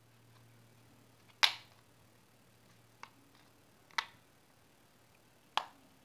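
Plastic case halves of a Sony remote control snapping together as their latches catch: four short sharp clicks, the first the loudest.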